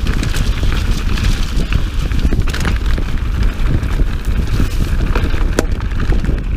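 Mountain bike riding fast over a dirt singletrack: wind rushing on the microphone over the rattle and clatter of the bike, with many short knocks as it runs over roots and bumps.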